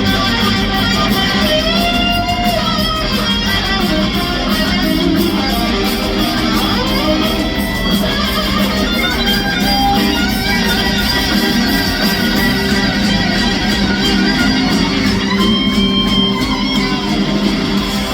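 Live rock band playing loud, with an electric guitar lead whose notes bend and glide in pitch over the full band.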